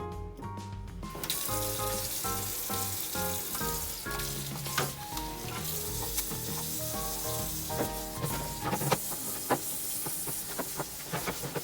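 A steady sizzling hiss with scattered crackles starts about a second in, under background music.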